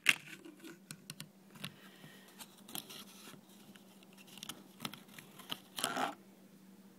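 Clear plastic CPU clamshell packaging being handled and pried open: irregular crinkles and clicks, with a louder burst of crinkling about six seconds in.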